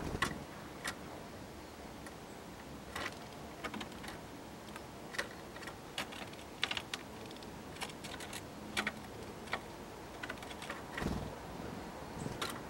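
Tits feeding at a wooden feeder, making irregular sharp taps and clicks as they peck at seeds, a few a second at most. A short low rumble comes near the end.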